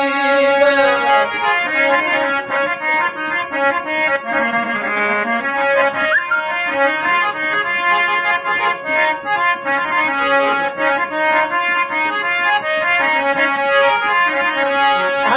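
Instrumental break in a Rajasthani folk song: a reedy keyboard-like instrument plays a running melody over a steady held drone note, with no singing.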